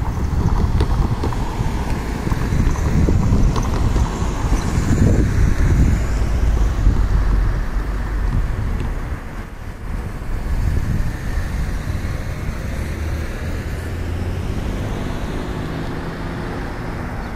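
Wind buffeting the microphone over the sound of cars on the street, strongest in the first half. A steadier engine hum carries the second half.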